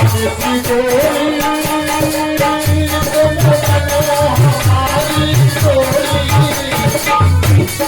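Bundeli devotional folk music, apparently an instrumental passage of the bhajan: a sustained melody line over regular low drum beats, with a steady shaken-rattle ticking on top.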